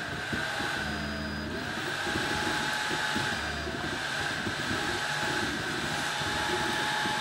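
Stepper motors of a DIY laser engraver's gantry whining as they drive the 3.5 W diode laser head back and forth, the motor tone gliding up and down as the head changes speed, over a steady hum. Short low hums come in about a second in and again around three and a half seconds.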